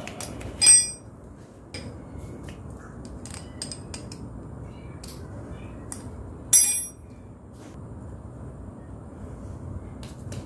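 Metal wrench clinking and ringing against the metal fittings of the clutch hydraulic line as it is worked. There are two loud ringing clinks, one just under a second in and another past halfway, with lighter clicks and taps between.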